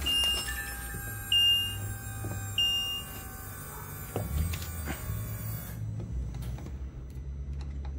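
Polaris Slingshot's dashboard warning chime beeping three times, about a second and a quarter apart, as a start is tried without the key, which the owner then goes to get. A single knock follows about four seconds in, over a low hum.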